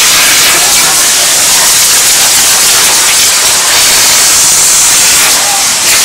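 Espadas, handheld bamboo-tube gunpowder fireworks, burning and spraying sparks with a loud, steady hiss.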